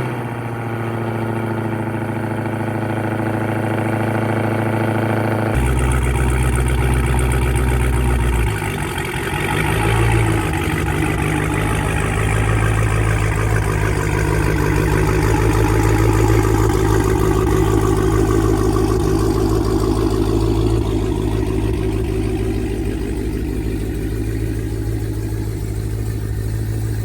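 Engine of a Hellcat Chrysler 300 running at low speed as the car is pulled out, with a steady note for the first five seconds, then a fuller, rougher sound that dips and swells briefly about nine seconds in.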